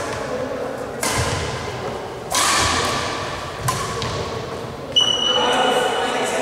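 Badminton rackets striking a shuttlecock in a rally: four sharp hits about a second and a half apart, each ringing briefly in the large hall. A steady high tone sets in with the last hit.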